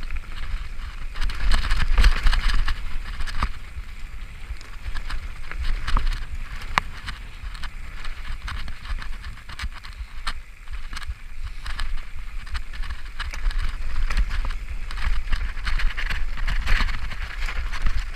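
Mountain bike riding fast down a dirt forest singletrack: tyre noise over dirt and leaves, with frequent sharp clicks and rattles from the bike over bumps, over a low wind rumble on the on-board camera's microphone. It swells louder about two seconds in and again near the end.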